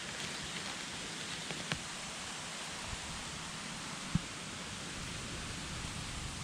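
Steady even hiss of forest background with faint rustling and a few light ticks, and one sharper crack about four seconds in.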